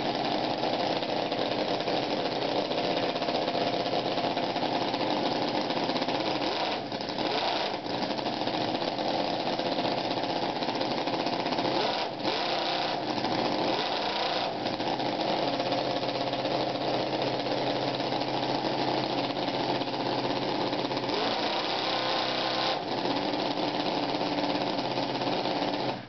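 Pee Wee V4 model four-cylinder engine with points-and-coil spark ignition running fast and steadily on a test stand, a dense rapid buzz whose pitch shifts a few times. It stops at the very end.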